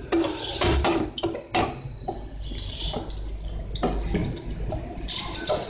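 Filled plastic milk bottles being handled, lifted and set down, with irregular knocks and short splashing, dripping water sounds.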